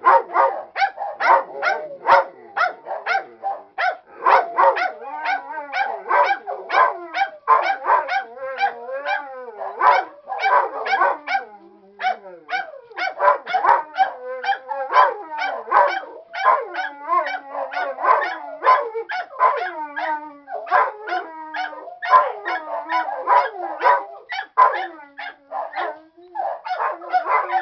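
Dogs barking, yipping and howling non-stop in short calls, about two a second, mixed with longer wavering howls and at times two voices at once. This is the excited 'talking' of dogs answering their owner.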